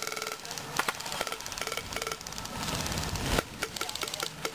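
Airsoft guns firing: rattling bursts of rapid automatic fire mixed with single sharp shots.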